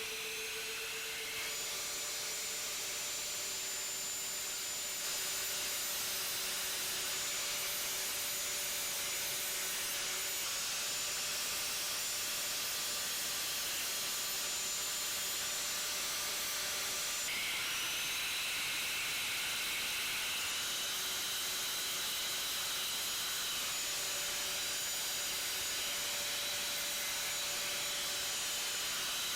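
Angle grinder with an 80-grit abrasive disc running steadily against a rusty cast iron differential housing: a steady motor whine under a grinding hiss. The pitch and texture shift abruptly a few times.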